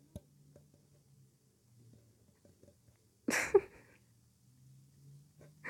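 Faint steady low hum with a few small clicks, then a single sudden, loud vocal sound from a person, about half a second long, a little past three seconds in.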